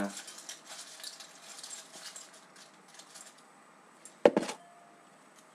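Folded paper notes rustling and crackling as a hand rummages through them in a glass bowl, dying away after about three seconds. About four seconds in comes a single sharp knock, the loudest sound, with a faint short ring after it.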